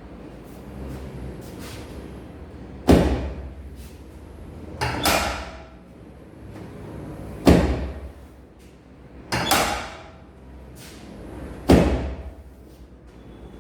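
Five loud thuds about two seconds apart, each dying away within a second, with a few faint clicks between them.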